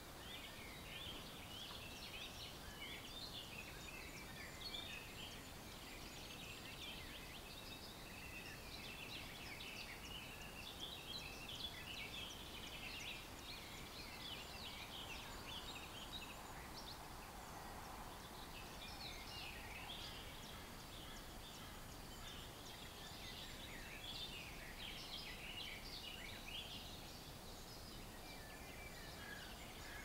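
A dense chorus of many songbirds chirping and trilling without a break, over faint steady background noise.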